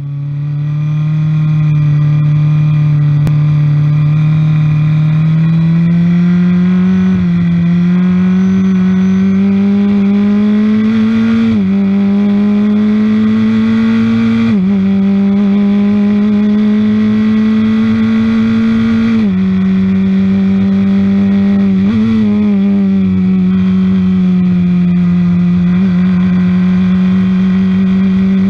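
Engine of a Piper DL07 Formula Ford single-seater at full throttle, heard on board. Its pitch climbs steadily in each gear and breaks sharply at each gear change, about five times, over a rushing wind and road noise.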